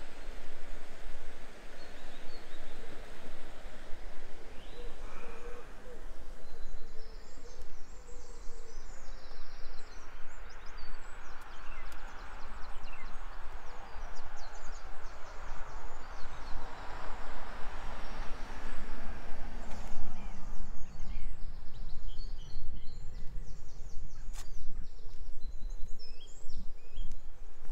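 Small birds chirping and singing in quick repeated phrases over a steady outdoor background hiss. A broader rushing noise swells and fades through the middle, and there is a single sharp click about three-quarters of the way through.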